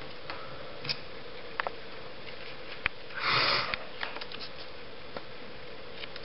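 A person sniffs sharply once, about three seconds in, over a steady background hiss. A few faint clicks come before and after the sniff.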